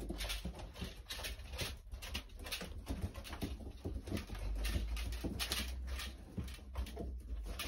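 Domestic tumbler pigeons cooing and shuffling, with many quick taps from beaks pecking at a grain feeder and feet on a wire-mesh floor.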